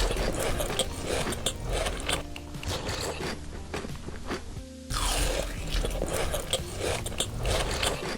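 Close-up biting and chewing of a chewy biscuit cookie, with a run of short crunching and crackling clicks.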